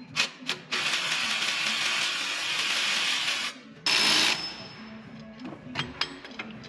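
A power tool runs in two bursts while engine parts are unbolted: a long run of about three seconds, stopping sharply, then a short half-second burst, with a few sharp clicks just before.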